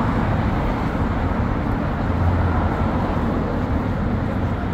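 Steady city street traffic: cars driving along a wide avenue, a continuous low rumble of engines and tyres that swells a little about halfway through.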